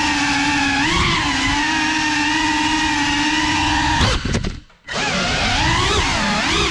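GEPRC 35 cinewhoop FPV drone's motors and ducted propellers whining, the pitch rising and falling with throttle. About four seconds in there is a sudden jolt and the motor sound cuts out almost completely for about half a second, then picks back up.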